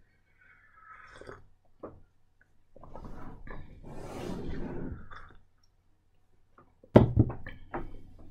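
Sipping and slurping from a mug, with a longer noisy slurp in the middle, then a sharp knock about seven seconds in followed by a few lighter clicks.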